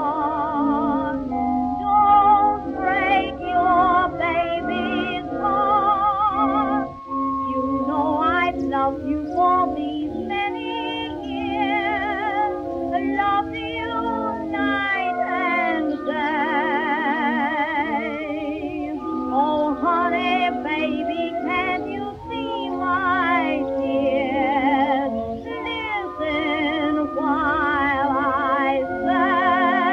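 Music: a song with a woman singing, her voice wavering in a wide vibrato, over an instrumental accompaniment.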